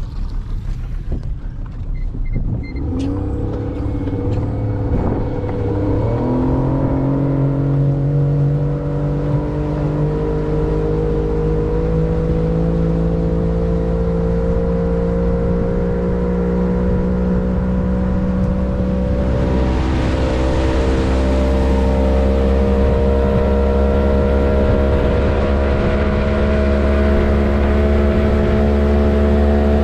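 A vehicle engine picks up about three to six seconds in, then keeps running and speeding up gradually, its pitch rising slowly and steadily.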